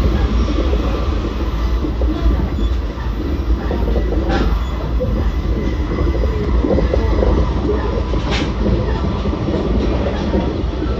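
JR Central 383-series Shinano limited express train running along the line, a steady low rumble of wheels on rail. Two sharp clicks come through, one near the middle and one later on.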